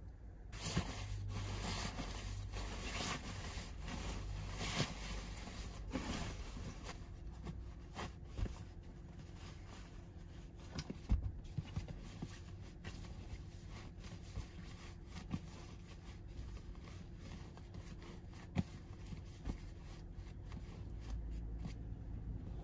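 Fabric and gear rustling and rubbing, busiest in the first six seconds, with scattered light clicks and knocks, heard in the close sound of a small van interior.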